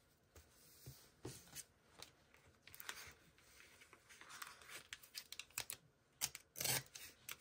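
Quiet paper and stationery handling on a desk: scattered light taps and scratchy rustles of paper, tape and stickers, with a louder rustle near the end.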